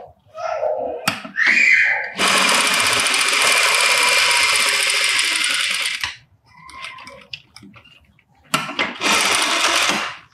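Industrial lockstitch sewing machine running at speed, stitching a seam in two runs: a long one of about four seconds, then a shorter one near the end. Between the runs there are quieter sounds of fabric being handled.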